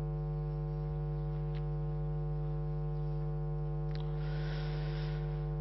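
Steady electrical mains hum with many even overtones, carried by the microphone and sound system. A faint click and a brief soft hiss come about four seconds in.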